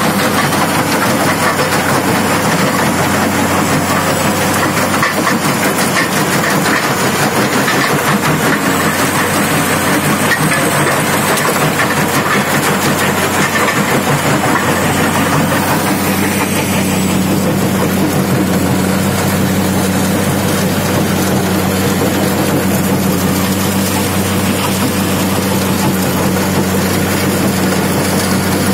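McCloskey mobile crushing and screening plant running under load: a steady diesel engine drone with rock rattling and grinding through the feeder and crusher. About halfway through, the rattling eases and a steadier machine hum is left.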